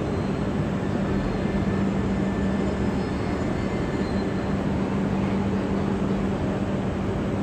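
E6-series Komachi Shinkansen train creeping slowly along the platform toward the waiting Hayabusa to couple up: a steady rumble with a constant low hum.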